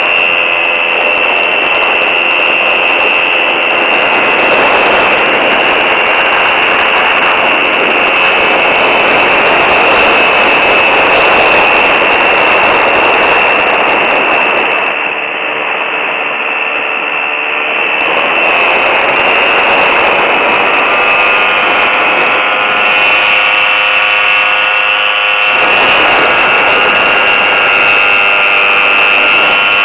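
Ultralight trike's engine running in flight, with wind rushing past: a loud, steady drone with a high whistling tone over it. About 15 seconds in it eases off for a few seconds, then comes back with tones gliding up in pitch.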